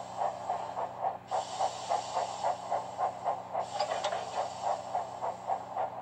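Cartoon steam locomotive chuffing, a steady run of about four puffs a second, with a hiss of steam over it for much of the time.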